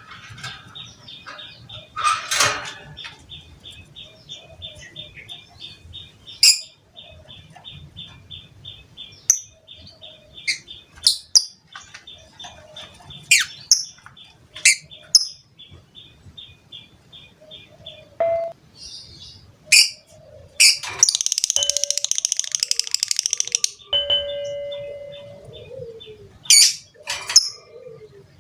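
Lovebird calling: a long run of quick, evenly spaced high ticks with sharp chirps over them, then a loud, fast chattering trill lasting about three seconds, the long 'ngekek' song that lovebird keepers prize.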